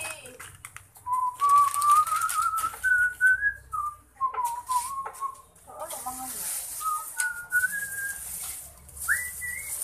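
A person whistling a slow, wavering tune in long held notes, with a few light clicks in between.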